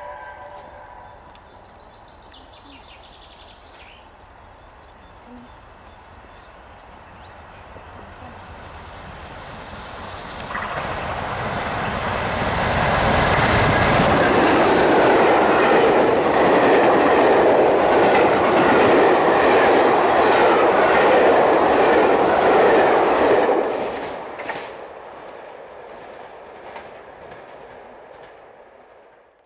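BR Britannia Class 4-6-2 steam locomotive no. 70013 passing at speed with its train of carriages. It grows louder over the first dozen seconds and is loud for about ten seconds as the engine and carriages go by. It then drops away sharply and fades.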